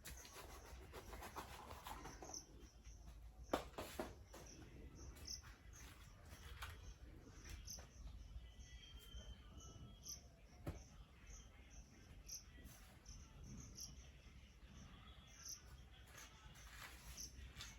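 Faint insect chirping, a short high chirp repeated about once or twice a second, with a few sharp clicks, the loudest about three and a half seconds in.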